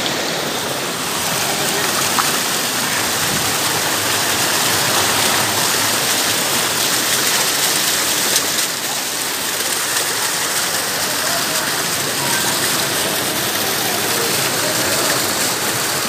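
Mountain stream water rushing and splashing down over boulders close by: a loud, steady rush.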